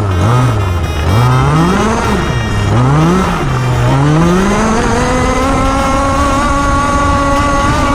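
Petrol engine of a 1/5-scale FG RC race truck revving up and down several times, then climbing and holding steady at high revs for about three seconds, as at full throttle.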